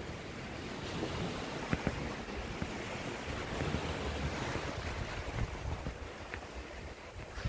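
Surf washing onto a sandy beach, with wind buffeting the microphone in a fluctuating low rumble. A couple of brief scratches, likely the charcoal stroking the paper, stand out near the start and near the end.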